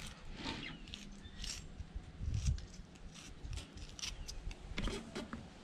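Fillet knife cutting through the thick-scaled skin of a chilled black drum: a faint, irregular run of small crackling scrapes and clicks, with a couple of low thuds partway through.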